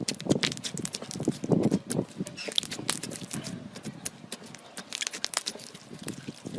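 Slime being squeezed and worked by hand: soft squishing broken by many irregular small sticky pops and clicks.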